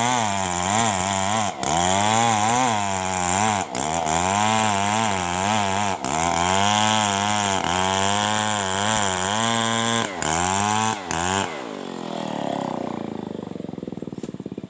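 Two-stroke chainsaw ripping lengthwise through a coconut trunk at full throttle. Its pitch sags and recovers as the chain works in the cut, with brief throttle releases every couple of seconds. About eleven and a half seconds in, the throttle is let off and the engine winds down, fading near the end.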